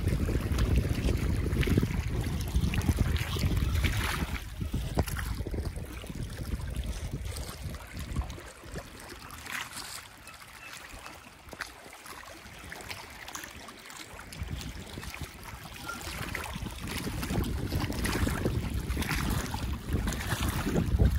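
Wind buffeting the microphone in gusts, over choppy lake water lapping at the rocky shore. The rumble is heaviest at first, eases through the middle, and builds again near the end.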